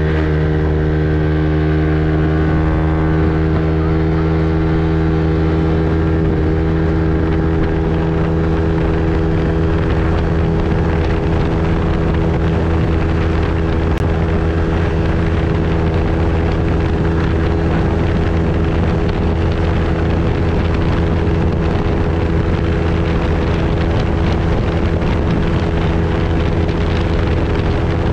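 Yamaha NMAX 155 scooter's single-cylinder engine running through a CRP bolt-on aftermarket exhaust, holding a steady pitch under throttle as the scooter gathers speed, the CVT keeping the revs constant. Wind rushes over the microphone.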